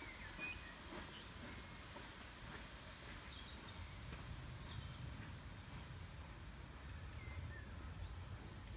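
Faint outdoor ambience: a steady low rumble with a few faint, short bird chirps scattered through it.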